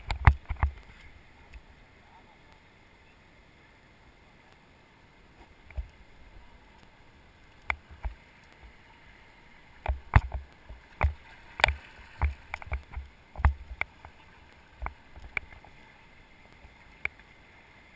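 Sharp knocks and bumps of paddles and gear on a drifting river raft, scattered at first and bunched together about ten to thirteen seconds in, over a low steady rush of river water.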